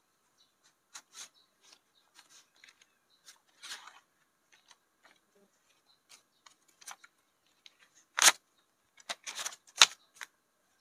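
Paper banknotes being taken out of a plastic cash envelope and straightened by hand: scattered soft rustles and ticks, with sharper crinkles about eight seconds in and again a second or two later.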